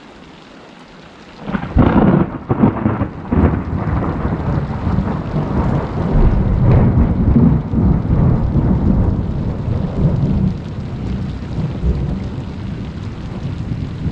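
Steady rain, then about a second and a half in a sudden loud thunderclap with several sharp cracks. It rolls on as a low rumble for several seconds and slowly fades near the end.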